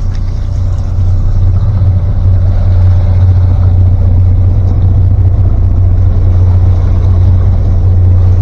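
A powerboat's engine running steadily underway, a loud low drone that grows louder about a second in.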